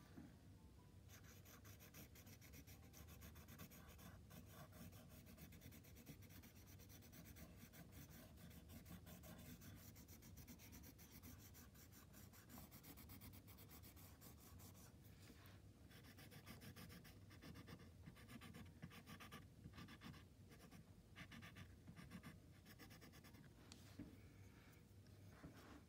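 Faint, quick, repeated scratching of a pointed wooden stick scraping through layered oil pastel on paper, etching lines into the colour.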